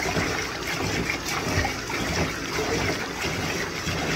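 Water trickling and splashing in a bathtub while a puppy is washed, a steady wash of water noise with small splashes.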